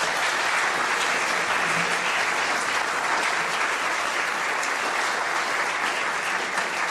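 Audience applauding steadily, welcoming the speaker to the podium.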